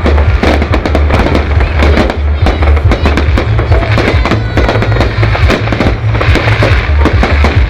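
Fireworks bursting and crackling in rapid, overlapping bangs, over loud music with a heavy bass.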